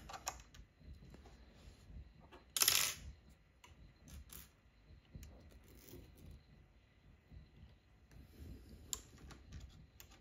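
Small metal and plastic parts of a 3D printer extruder being handled and fitted back together: scattered light clicks and taps, with one louder metallic clink about three seconds in and a sharp click near the end.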